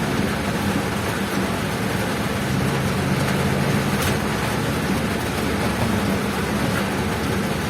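A road vehicle driving on a wet road: a steady low engine drone under an even hiss of rain and tyre noise.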